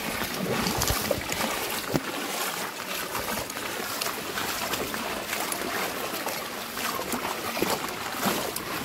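Shallow floodwater sloshing and splashing with irregular small splashes as someone wades along a submerged road.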